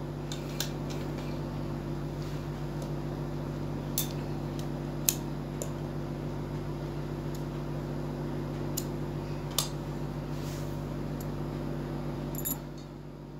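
A steady mechanical hum with a few light clicks and taps from fabric pieces being handled at a sewing machine. The hum drops away near the end.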